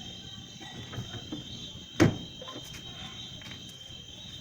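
Steady high chirring of crickets in the background, with a few light clicks and one sharp knock about two seconds in, as the washing machine's parts and tools are handled.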